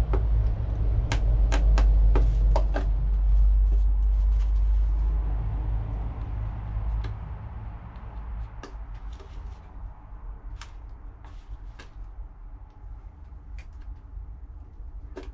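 Thin plastic takeaway container being handled and cut, giving scattered sharp plastic clicks and cracks, several close together in the first few seconds and sparser later. A strong low rumble runs under the first half and fades out.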